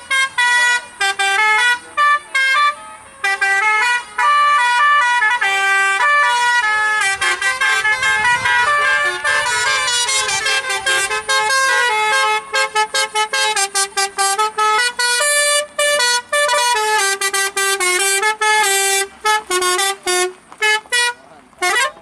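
Basuri telolet horn, a multi-note musical bus horn, playing a quick melody of short clipped notes with brief gaps, ending on a rising glide.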